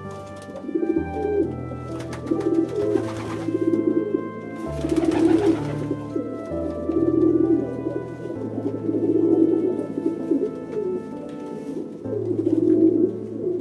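Rock pigeons cooing in repeated low, throaty phrases, the courtship coo of a pair, over background music.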